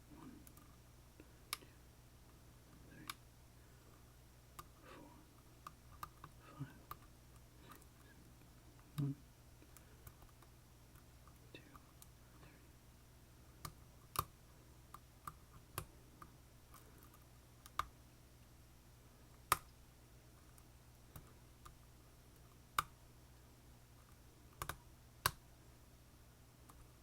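Irregular sharp clicks and light scraping of lock picks working inside an Assa Twin Combi lock, with a faint steady hum underneath.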